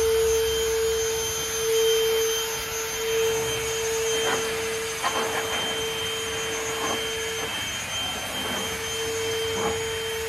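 Portable wet/dry shop vacuum running as a blower: a steady motor whine over rushing air as it blows dust off a dirt floor. The whine drops away for about a second past the middle, then comes back.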